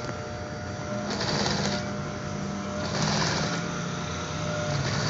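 Industrial sewing machine stitching heavy blue sheeting. Its motor hums steadily, and the needle runs in two short bursts of stitching, each under a second long.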